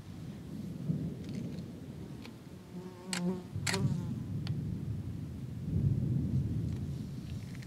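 Distant thunder rumbling low and continuously under a thunderstorm, swelling again about six seconds in. A brief insect buzz passes close to the microphone about three seconds in.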